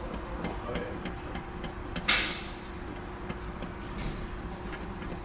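Light clicks and knocks of metal parts as the on-car brake lathe's cutting-tool arms are adjusted and slid into place against the brake rotor. About two seconds in there is one short, loud hiss that fades quickly. A steady low hum runs underneath.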